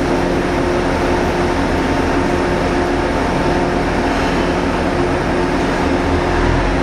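JR East KiHa E120 diesel railcar standing with its diesel engine idling: a steady hum with a deep rumble underneath, the rumble growing stronger near the end.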